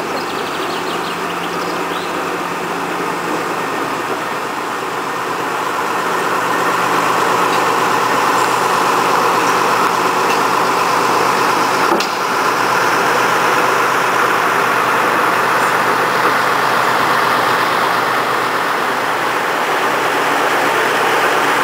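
Small diesel locomotive of a narrow-gauge park railway running steadily with its train, growing louder about six seconds in. A single sharp knock about twelve seconds in.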